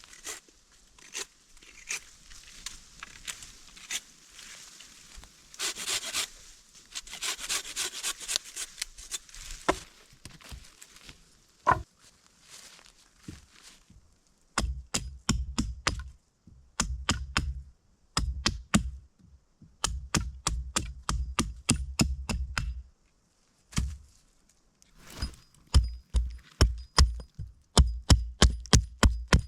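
Rustling and crinkling for the first half. Then runs of rapid, evenly spaced knocks on wood, each a sharp crack with a dull thud, coming in bursts of a few seconds with short pauses between.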